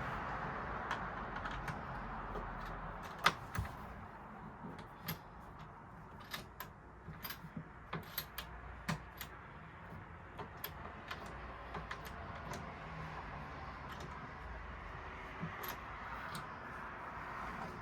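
Irregular small clicks and knocks of sofa hardware being handled and screwed together by hand, with one sharper knock about three seconds in.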